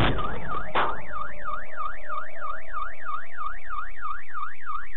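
A loud crash at the start, then a second sharp bang just under a second in. A car alarm follows, wailing up and down about four times a second.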